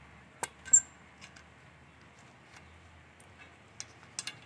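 A few sharp clicks and small taps as the rubber flyback anode cap is worked onto the anode button of a CRT picture tube's glass. One loud click comes just under a second in, then light ticks near the end.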